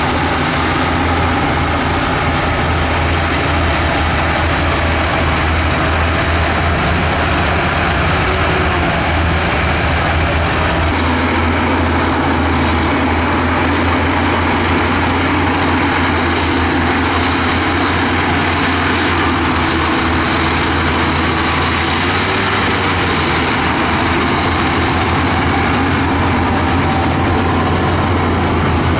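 Heavy earthmoving machine's diesel engine running steadily, with a strong low hum under a broad mechanical din.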